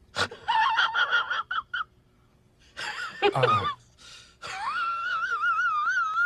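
High-pitched, squeaky voice-like sound effect: quick chattering squeaks, a short squeal about three seconds in, then a long wavering wail near the end.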